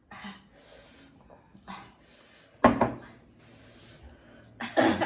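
Someone eating spicy panipuri, breathing hard in short hissing breaths about once a second. Two louder mouth sounds, a crunch or slurp, come about two and a half seconds in and near the end.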